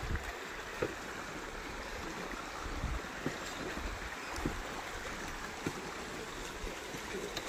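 Shallow forest stream running over stones: a steady rushing of water, with a few faint ticks scattered through it.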